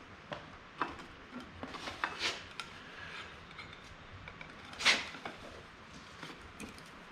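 Scattered light clicks, taps and knocks of hand work on small hard parts, with one louder clack about five seconds in.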